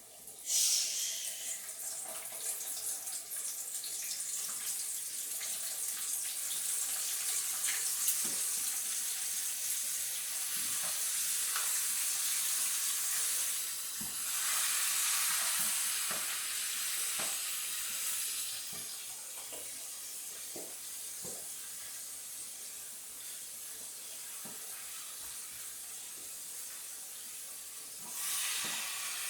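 Battered chicken wings frying in hot oil. A loud sizzle surges about half a second in as the pieces go in, then runs on as a steady sizzle with scattered pops and crackles, and swells again near the end.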